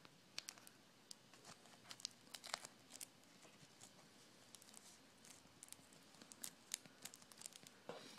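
Faint, scattered crinkling and small clicks of adhesive tape and plastic laptop parts being handled around the display cable connector.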